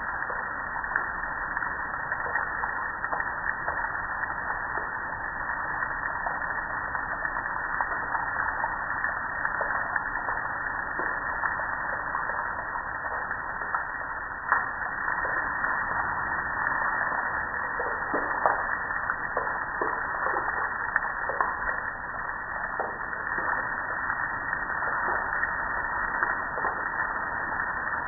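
Water falling and splattering onto a metal gas grill and the wet concrete below it: a steady splashing with many sharp ticks of drops striking the metal.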